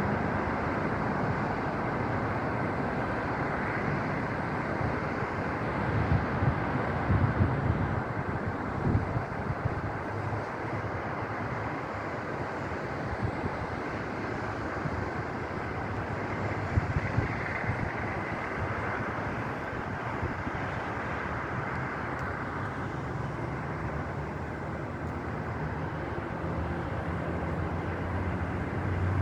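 Strong wind buffeting the microphone over a steady roar of highway traffic, with louder gusts a few times.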